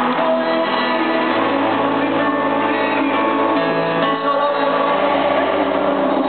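Live pop ballad played through an arena sound system: piano and guitar with a singing voice, steady and loud.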